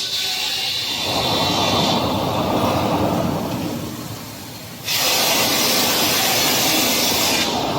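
CNC glass seaming machine running: steady grinding and hissing noise that changes abruptly in character about two seconds in and again about five seconds in, as the footage switches between shots.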